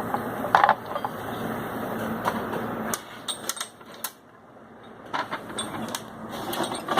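Metal toolbox drawers being slid open and shut, with scattered clicks and clinks of the drawer slides and the tools inside.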